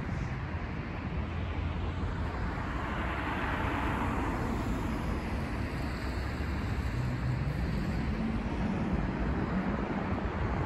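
City street traffic: continuous road noise with a low rumble, a vehicle passing about four seconds in, and an engine note rising in pitch as a vehicle pulls away after about seven seconds.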